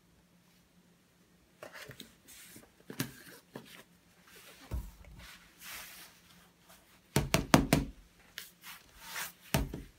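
Plastic tubs and powder bottles being handled and set down on a wooden table: scattered knocks and rustles, with a louder run of knocks about seven seconds in and another knock near the end.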